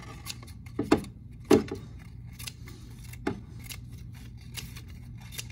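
Scissors snipping a strip of paper into short pieces: a run of quick sharp snips, with louder knocks about one and a half seconds in and again a little after three seconds.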